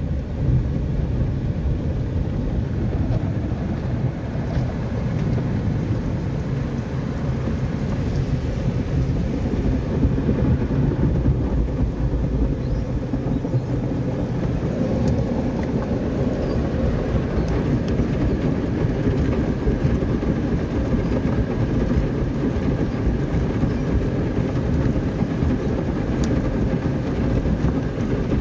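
Automatic tunnel car wash heard from inside the car's cabin: water jets spraying and wash brushes scrubbing over the windshield and body, a loud steady rumble with a hiss of spray.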